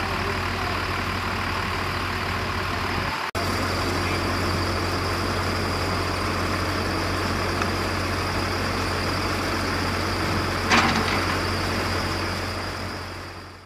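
Heavy construction equipment's engine idling steadily, with a brief sharp sound about eleven seconds in. The sound cuts out for an instant about three seconds in and fades away at the end.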